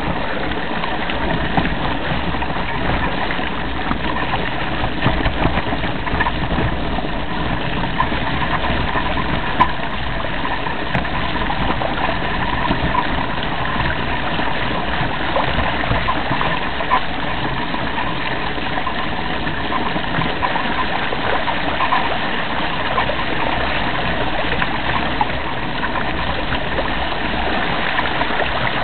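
Steady rushing noise of a mountain bike riding over a rough grass track, heard from a camera mounted on the bike, with a few brief knocks and rattles from the bike on bumps.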